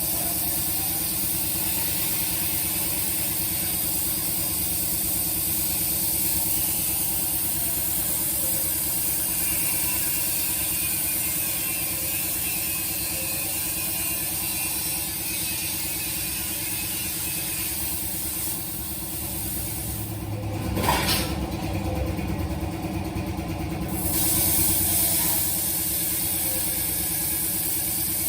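CNC plasma cutter cutting thin steel plate: a steady machine hum under a high hiss. About twenty seconds in the hiss drops out for a few seconds, with a sharp click and a louder low rumble, then the hiss resumes.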